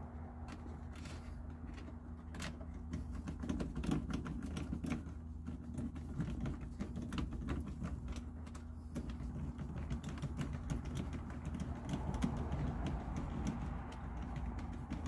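Irregular small clicks and taps of hands and a tool working plastic and metal fittings on a diesel heater's hose line, over a steady low hum.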